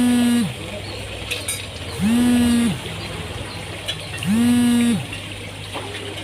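A low, buzzing tone repeating at a steady pace, three times, each under a second long and a little over two seconds apart; each one slides up into pitch at the start and back down at the end, like a horn or alarm.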